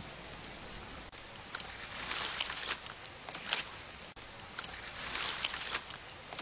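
Wood campfire crackling, with irregular sharp pops over a hissing background, as a coiled snake grills on a spit above it.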